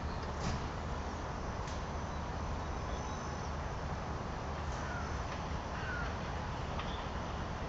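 Steady outdoor background rumble and hiss, with a few faint short bird calls.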